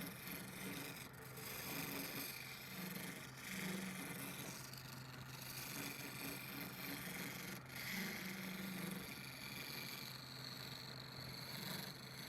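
Wood lathe running with a steady motor hum, a turning tool scraping and rubbing against the spinning wood.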